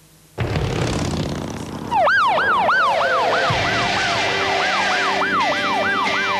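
A police siren yelping in fast rising-and-falling wails, about three a second, starting about two seconds in. Before it, from about half a second in, comes a sudden rush of car engine and road noise.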